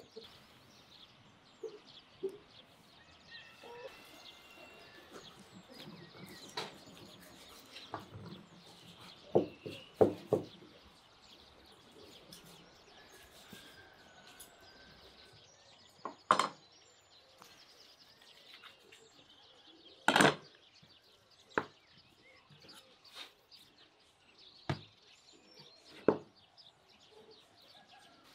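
A handful of separate sharp knocks and clatters of food preparation, the loudest a pair about a third of the way in and another a little past two-thirds, over faint birds chirping.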